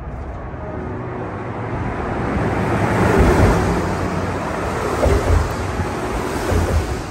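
A car passing through the wooden covered bridge on the roadway beside the walkway: a rushing tyre and engine noise that swells to its loudest about three seconds in and then eases off, with a few low thumps near the end.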